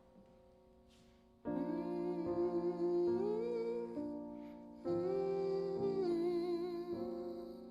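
Slow gospel song intro: a voice sings a wordless, humming melody in two long phrases over sustained keyboard chords. The second phrase starts about five seconds in.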